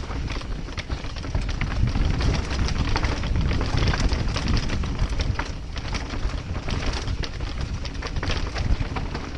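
Mountain bike riding fast down a rocky dirt trail, heard from a helmet-mounted camera: wind rumble on the microphone, with tyres crunching over rock and loose dirt and the bike rattling and clattering over the bumps.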